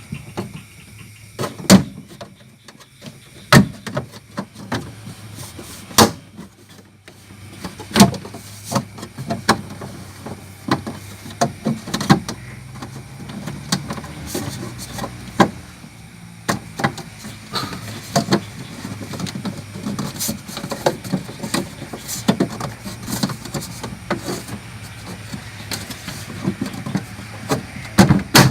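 Repeated sharp knocks and clicks, the loudest coming roughly every two seconds with smaller ones between, over a low steady hum.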